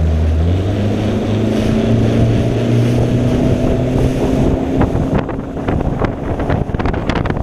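Bass boat's outboard motor throttling up as the boat pulls away, its pitch climbing over the first few seconds. Then the engine tone sinks under rapid wind buffeting on the microphone as the boat runs at speed.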